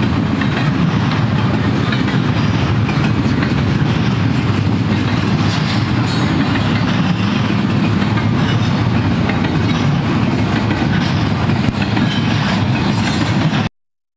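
Double-stack intermodal container train's well cars rolling past at speed, giving a steady, loud noise of steel wheels on rail. The sound cuts off abruptly about half a second before the end.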